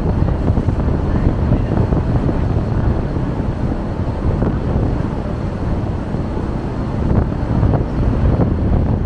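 Wind buffeting the microphone over the rush of sea water churned between two ships running close alongside each other under way. A steady, loud, low rumble with no distinct events.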